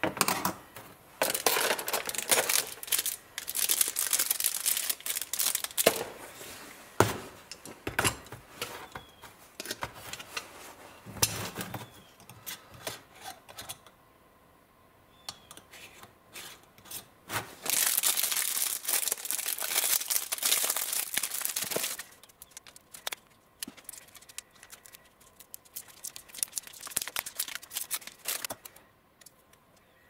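Plastic packaging of a tire plug repair kit crinkling and tearing as it is handled and opened, in irregular spells, with a few sharp knocks of tools set down on a workbench.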